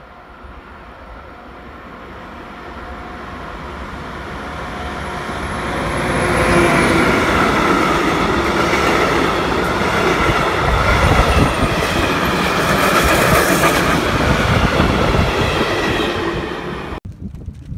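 Freight train of empty stake wagons approaching and passing close by. The rumble builds over about six seconds into a steady, loud rolling clatter of the wagons, then cuts off abruptly near the end.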